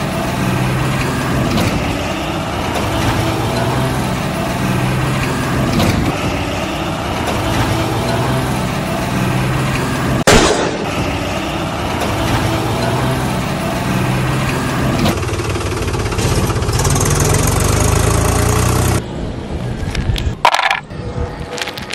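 A truck engine running steadily, with one sharp crack about ten seconds in. Near the end it gives way to small toy bricks clattering as they are dropped onto a pile.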